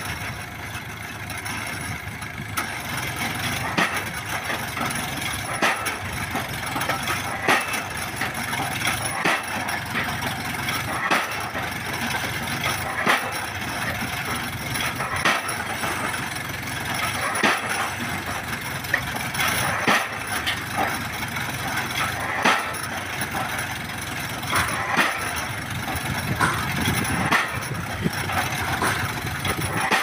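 Small drop-hammer pile-driving rig: its winch engine runs steadily while the hammer strikes a precast concrete pile with a regular knock about every two seconds.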